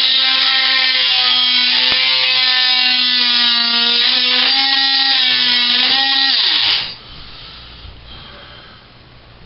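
Ryobi P340 18-volt oscillating multi-tool with a metal-cutting blade running at full speed, its steady buzz shifting slightly in pitch as the blade works. About seven seconds in it is switched off and winds down quickly.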